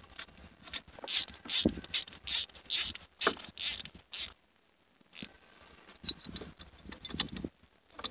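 Screwdriver turning and seating the screws on a snowmobile carburetor's top cover during reassembly: a quick run of about eight loud, sharp metallic clicks and scrapes over some three seconds. After a brief gap, softer clicks and handling of the metal carburetor body follow.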